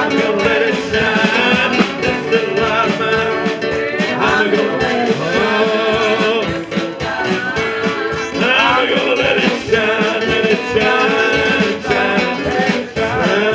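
Music: a voice singing over guitar accompaniment.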